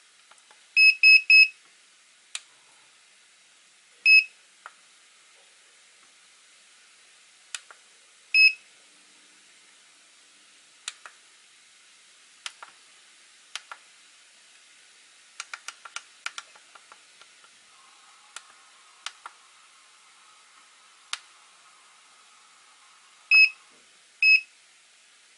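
Hobby LiPo battery charger beeping as its keypad buttons are pressed to step through the menus: three quick beeps about a second in, single beeps at intervals, and two more near the end as a battery check starts. Soft clicks of the buttons sound between the beeps.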